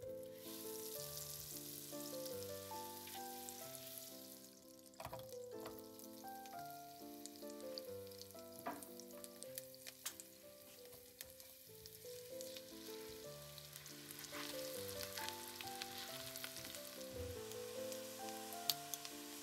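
Food sizzling as it fries in a pan, with a few sharp clicks and taps. Soft background music plays a simple melody under it.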